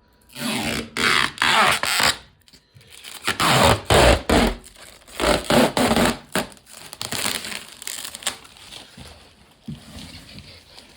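Loud rustling and crinkling handling noise in irregular bursts, heaviest in the first seven seconds and thinning out after.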